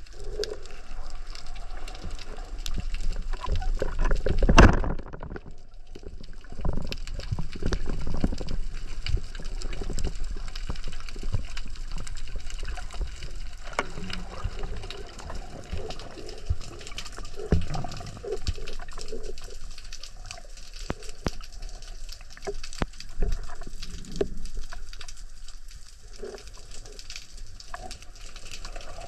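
Underwater sound of water moving, with scattered clicks throughout, and a single loud sharp crack about five seconds in: the shot of a Thorpedo 83 wooden speargun.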